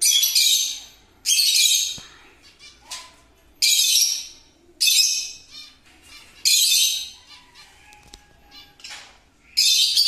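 Peach-faced lovebirds giving shrill, high-pitched calls in six short bursts of about a second each, one every one to two seconds.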